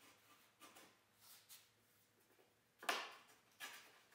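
Low-angle jack plane taking light passes along a mitered wood edge to fine-tune the joint: a few faint, short shaving swishes, the loudest about three seconds in.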